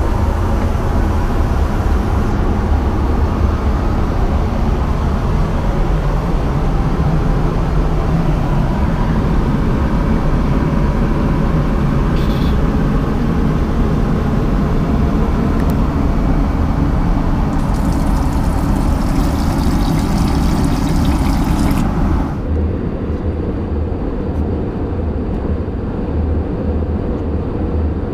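Steady cabin noise of an Airbus A320 airliner in flight: the engine and airflow drone inside the passenger cabin. About three-quarters of the way through, the upper hiss drops away suddenly and the drone turns duller and a little quieter.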